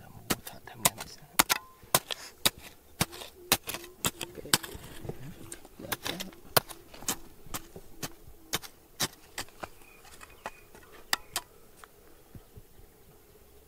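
A long series of sharp, hard knocks, about two a second and unevenly spaced, that stops about eleven and a half seconds in.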